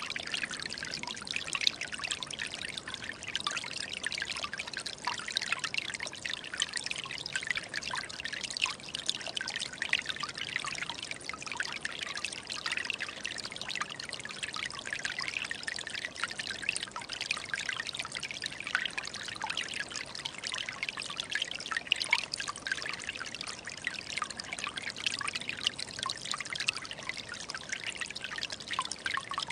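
Small forest stream trickling and babbling steadily, a constant rush of water dense with tiny splashes.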